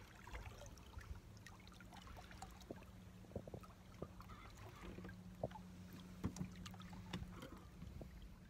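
Quiet ambience aboard a boat on calm water: small taps and light water sounds against the hull over a faint steady low hum.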